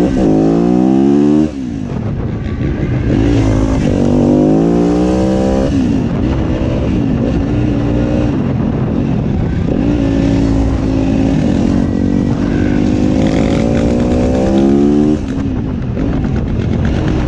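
Motorcycle engine heard from the rider's own bike, accelerating hard: its pitch climbs, falls off sharply about a second and a half in, climbs again, drops around six seconds, runs fairly steady, then climbs in one long pull and falls off sharply near the end, over a steady low rumble.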